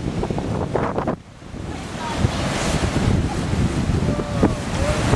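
Hurricane-force wind buffeting the microphone over heavy surf, with a brief lull about a second in before the gusts build back up.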